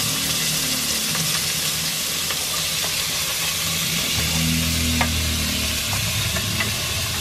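Diced white onion sizzling in hot oil in a cast iron Dutch oven as it is scraped in from a plate with a wooden spatula, a steady frying hiss with a few light taps of the spatula.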